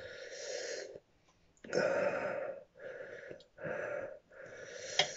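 A man breathing hard through his mouth in about five hissing, wheezy breaths, a natural reaction to the burn of a superhot chili pod.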